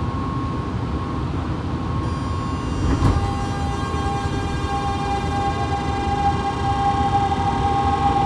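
Fukuoka City Subway 2000-series car with its Hitachi GTO-VVVF inverter pulling away from a station: low running rumble with steady tones, then about two seconds in the inverter's whine of many evenly spaced tones starts and holds, with a thump about a second later.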